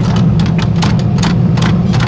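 Hammer blows on steel being forged into a knife blade, about four or five sharp strikes a second, over a steady low hum of forge machinery.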